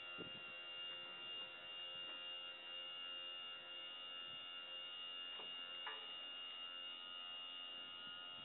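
Electric motor of a dump truck's automatic tarp system running steadily as it swings the arm and pulls the tarp over the body, a constant high-pitched hum. A few faint clicks come about halfway through.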